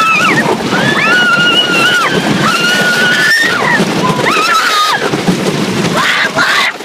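People screaming on a roller coaster as it drops: several long, high-pitched screams of about a second each, over the steady rumble of the train on the track, with rough wind noise on the microphone near the end.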